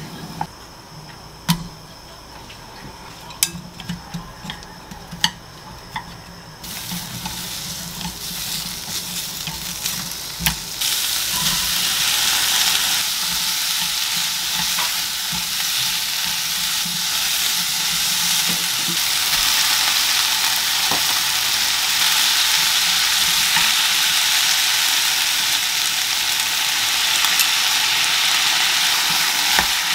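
A few sharp taps over a quieter start, then food sizzling in a frying pan, beginning about seven seconds in and turning loud and steady at about eleven seconds, as meat, onion and cabbage are stir-fried and stirred for yakisoba.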